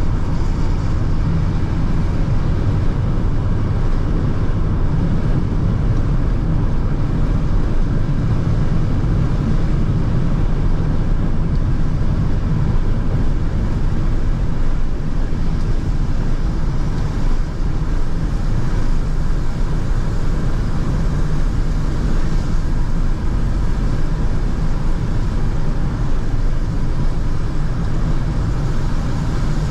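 A car driving on a rain-wet road, heard from inside the cabin: a steady low rumble of engine and tyres with a light hiss from the wet asphalt.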